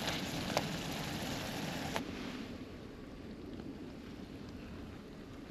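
Kavurma, egg and butter frying in a pan: a steady sizzling hiss with a few sharp pops in the first two seconds, going duller and quieter about two seconds in.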